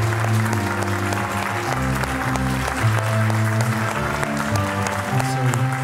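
Audience applauding over music of slow, held chords that change every second or so.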